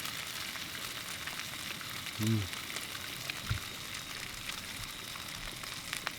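Meat patties frying on a portable gas burner: a steady sizzle with scattered spits and crackles, and one brief low knock about three and a half seconds in.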